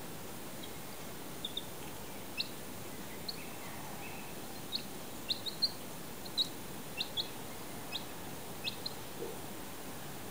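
A young chicken chick peeping: about fifteen short, high cheeps, some falling in pitch, scattered and coming thicker from about halfway through.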